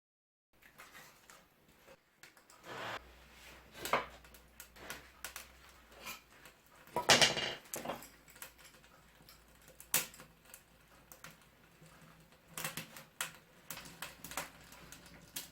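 Irregular clicks, knocks and rustling from firewood and a metal wood stove being handled as a fire is set, with a louder rustling, scraping burst about seven seconds in and a sharp knock a few seconds later.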